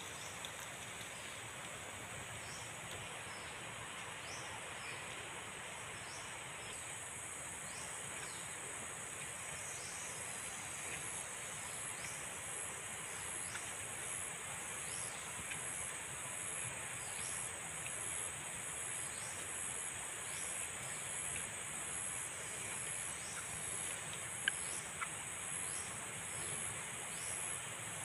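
Steady high-pitched insect chorus, pulsing in its upper band, with faint falling chirps about once a second. One sharp click near the end.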